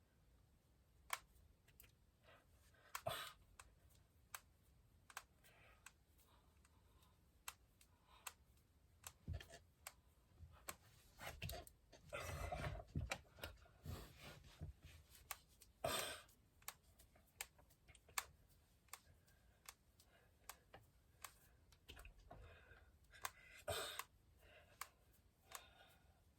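Finger and knuckle joints cracking: scattered sharp clicks and pops, irregular and about one a second, with softer rustling of the hands in between.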